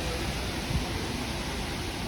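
Steady hiss of radio static from a NOAA weather radio receiver.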